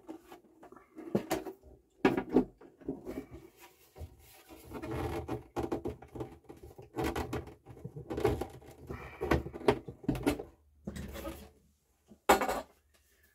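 Handling noise from an Akai AP-001C turntable chassis being turned over and set down on a bench mat: irregular bumps, scrapes and rustles, with one sharp knock near the end.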